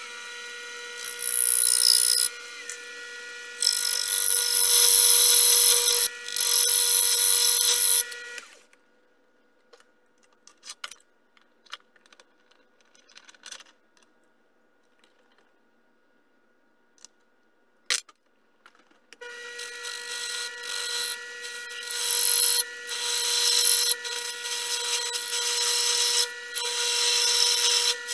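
Miniature metal lathe running with a steady motor whine while the tool cuts the spinning crankshaft part for a model four-stroke engine, the cutting noise coming and going. About eight seconds in the lathe stops, leaving small clicks and taps of a hex key adjusting the tool post and one sharp click, and it starts up again with more cutting a little past halfway.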